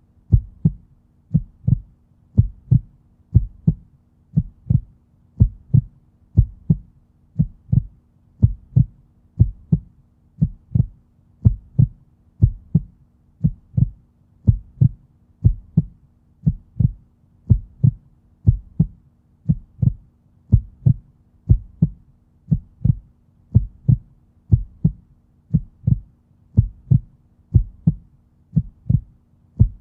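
Heartbeat recording: a steady, regular rhythm of deep, muffled double thuds (lub-dub), repeating at an even resting pace.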